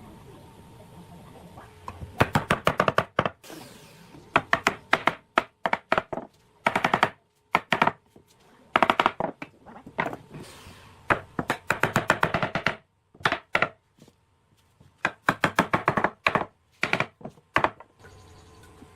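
Rapid runs of sharp knocks on wood, several strikes a second, in short bursts separated by brief pauses, with a few abrupt drops to silence between them.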